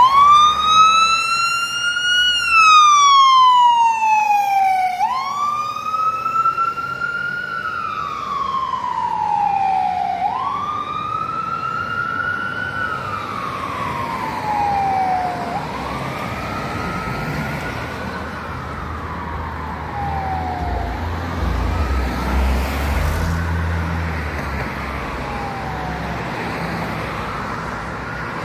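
Electronic siren of a fire department emergency vehicle coming on and sounding a slow wail that rises and falls about every five seconds. It grows fainter as the vehicle drives away. A low vehicle rumble swells for a few seconds past the middle.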